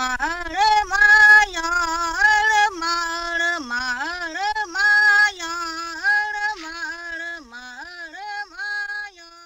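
A single voice singing a slow melody without accompaniment: held notes linked by glides, trailing off near the end.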